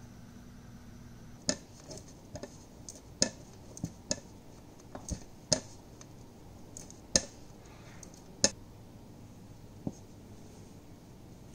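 Irregular sharp clicks and light clinks of small hard objects, about a dozen starting a second and a half in, then one more near the end.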